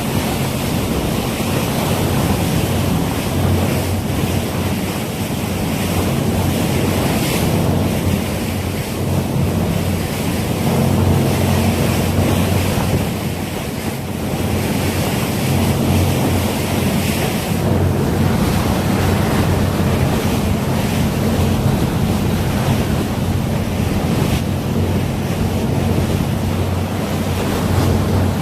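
Wind rumbling steadily on the microphone aboard a yacht, over a constant rush of sea water.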